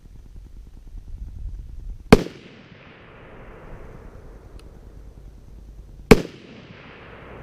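Two unsuppressed rifle shots from an AR-15-pattern .300 Blackout firing 110-grain Hornady V-MAX loads, about four seconds apart. Each is a sharp crack followed by a long fading echo.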